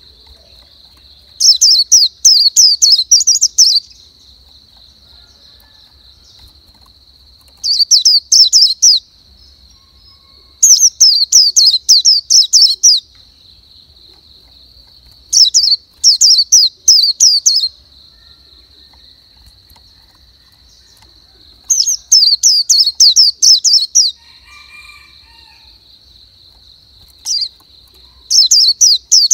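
A songbird singing repeated phrases of quick, down-slurred chirps, each phrase lasting a second or two and coming every few seconds. A steady high-pitched whine runs underneath throughout.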